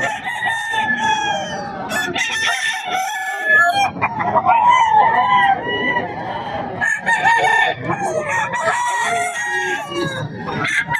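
Several gamefowl roosters crowing over one another, with clucking between the crows, in a dense, unbroken chorus.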